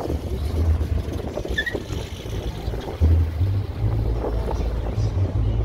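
Wind buffeting the phone's microphone in uneven low rumbling gusts, over the sound of car engines in the lot.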